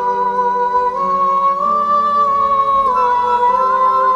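Background music of slow, held notes in several voices, moving to new pitches every second or so.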